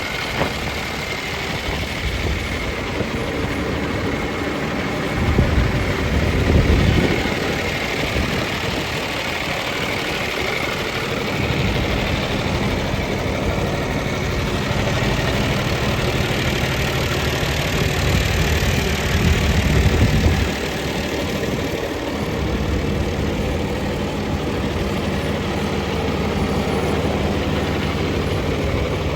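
John Deere 2840 tractor's diesel engine running at idle. It swells louder briefly about five seconds in and again around eighteen seconds in.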